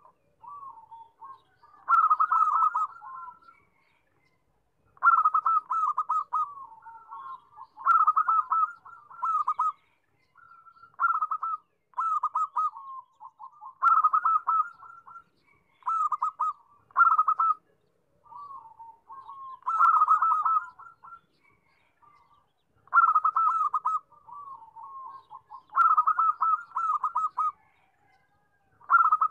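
Zebra dove (perkutut) singing: repeated phrases of quick staccato coos, one phrase about every three seconds, each a loud rapid run that trails off into softer notes.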